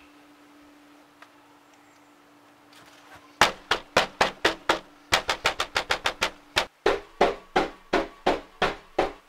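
Rapid, repeated knocking on a glass-paned door, about three or four knocks a second, starting about three seconds in and keeping on without a break.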